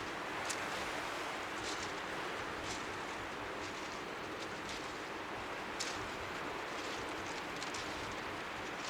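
Strong sea wind rushing as a steady, even hiss, with faint waves lapping on the shore underneath. Now and then there is a brief, faint high click.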